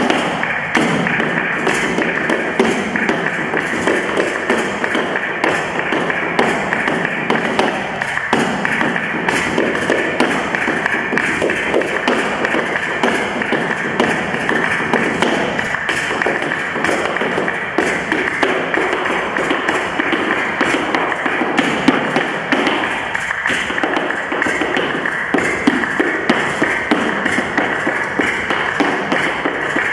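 Flamenco zapateado footwork in soleá: heeled flamenco shoes striking a hard dance floor in a dense, unbroken run of heel and toe taps and stamps.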